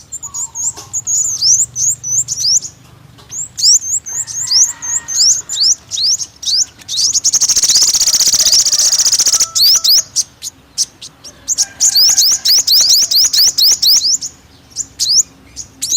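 Sunbird singing: a rapid, high string of short downward-sweeping chirps, broken about halfway by a fast, buzzy trill lasting a couple of seconds.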